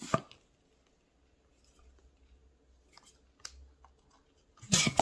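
Latex modelling balloon being fitted onto a hand pump's nozzle: a sharp click at the start, then faint rubbery handling clicks. Near the end the hand pump starts inflating the long balloon with a sudden loud rush of air.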